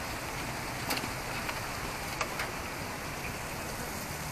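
Steady outdoor background hiss, with a few faint clicks about one and two seconds in.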